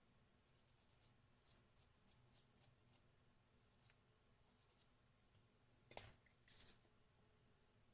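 Faint hand work on small guitar hardware: a quick run of light scratchy strokes and clicks, then two louder sharp clicks about six seconds in.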